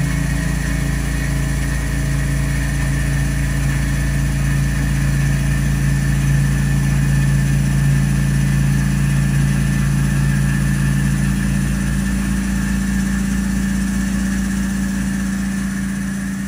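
Tormach 770 CNC mill running a cut in Inconel 718 with a six-flute Kennametal HARVI III end mill under flood coolant: a loud, steady low machine hum. About twelve seconds in the deepest tones fade and a slightly higher hum carries on. The cut is going well, with the end mill holding up more than 20 minutes into the program.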